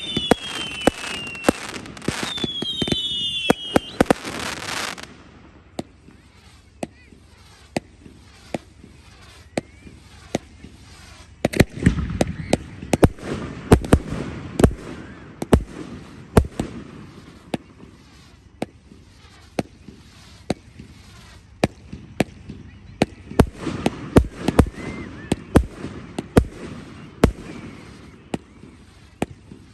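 Fireworks display: whistling fireworks give several falling whistles among bangs for the first few seconds, then a long run of sharp bangs and pops follows, with heavier volleys about twelve seconds in and again near twenty-four seconds.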